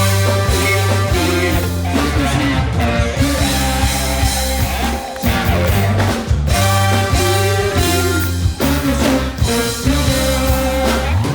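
Live afro-funk band music with a heavy bass line, drum kit and guitar, and a voice singing over it.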